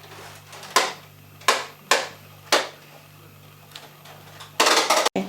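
Four sharp knocks within about two seconds, then a short burst of rustling noise near the end.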